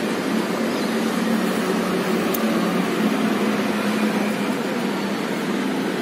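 A steady mechanical hum with a low drone and an even rushing noise.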